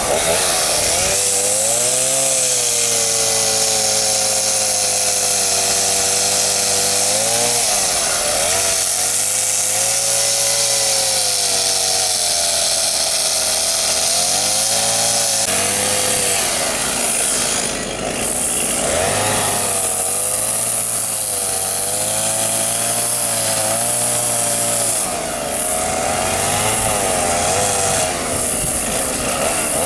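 Large chainsaw running hard while carving a tree trunk. Its engine note dips and climbs back several times as the chain bites into the wood and eases off.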